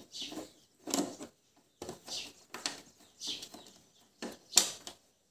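A screwdriver working the screws of a motorcycle's plastic headlight visor: a string of short scraping sounds, about one or two a second.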